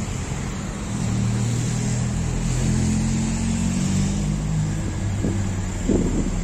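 A motor vehicle's engine running with a steady low hum, its pitch shifting a little partway through, and a few short louder sounds near the end.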